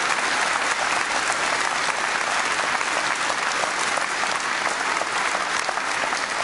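Large indoor audience applauding steadily.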